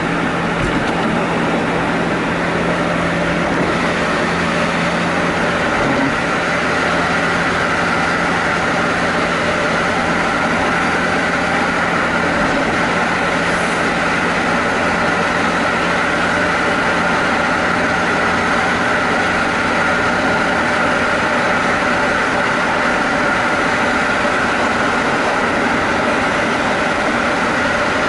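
Jaguar E-Type driving at a steady cruise: engine drone mixed with tyre and wind noise, the low engine note easing about six seconds in.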